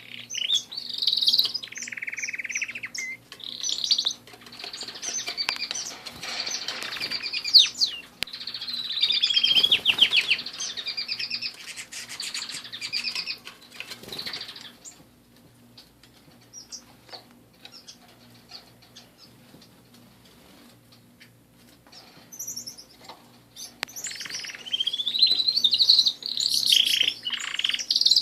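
Domestic canaries in a mixed aviary singing, with rapid trills and chirps, and wing flutters among them. The song breaks off about halfway through, leaving faint clicks and flutters, and starts up again loudly near the end.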